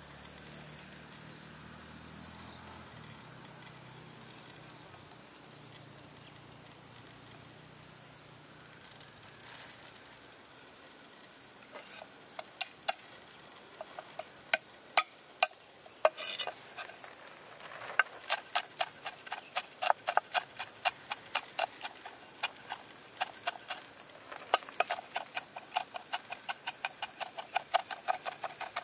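Cleaver chopping garlic and shallots on a wooden cutting board: a few single knocks, then past halfway quick, even chopping. Insects keep up a steady high chirring in the background.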